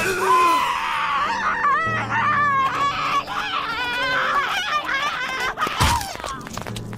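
A cartoon skunk's high-pitched screaming, wavering in pitch as her face is held over a popcorn-machine burner, ended by a sudden pop about six seconds in as her head bursts open like popcorn.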